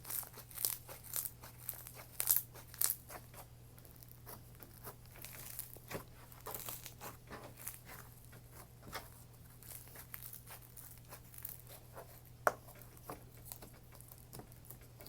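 Crunchy floam slime full of foam beads being squished and stretched by hand, giving dense crackles and pops for the first few seconds, then sparser clicks.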